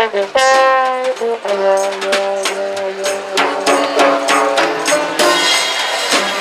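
Trombone played with a plunger mute in a small swing-jazz street band, its notes wavering then held, over a steady rhythm of strummed banjo chords.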